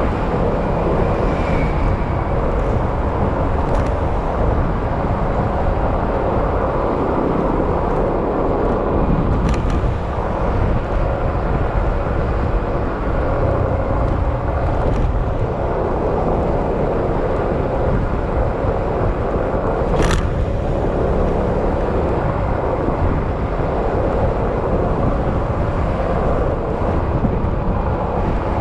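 Yamaha XMAX maxi-scooter's single-cylinder engine running steadily under way, blended with wind and road noise, with a short sharp click about two-thirds of the way through.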